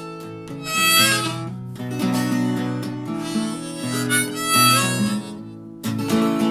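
Instrumental break of a blues-country song: harmonica playing over strummed acoustic guitar.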